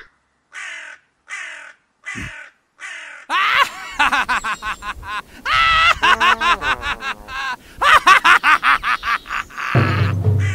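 Harsh cawing calls: four short ones about half a second apart, then a fast, dense string of them with bending pitch. Music comes in near the end.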